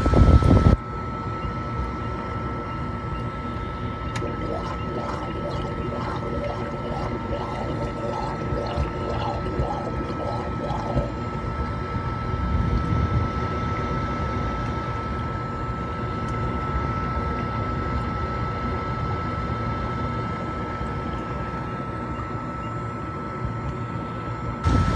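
Atwood RV furnace blower running steadily, a constant high whine over a low steady hum, while the furnace tries and fails to stay lit. A louder rush drops away about a second in.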